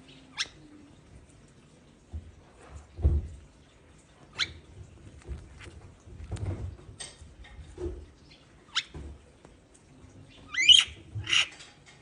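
Lovebirds making short, high squeaky chirps every few seconds while preening, with soft low rustles and bumps in between; two louder squeaky chirps come close together near the end.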